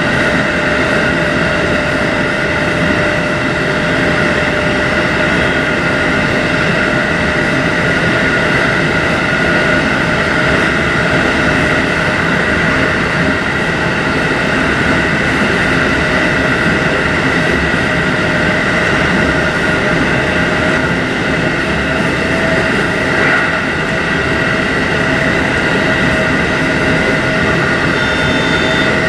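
JR Hokkaido Class 711 electric multiple unit running steadily along the line, heard from the front of the train: an even rumbling running noise with a steady whine held throughout.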